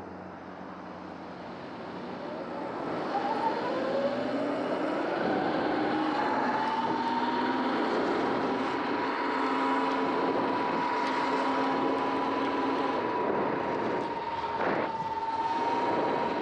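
Sur-Ron X electric dirt bike pulling away from a stop: its motor whine rises in pitch over a few seconds, then holds at a steady pitch as the bike cruises, over wind and road noise.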